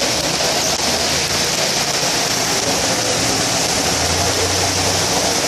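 Heavy storm rain and rushing flash-flood water running down a street: a loud, steady hiss. Underneath, a low engine hum from a vehicle swells twice.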